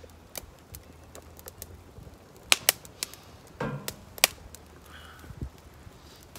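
Wood fire crackling in a fire pit: scattered sharp pops and snaps, with a few louder ones about two and a half and four seconds in.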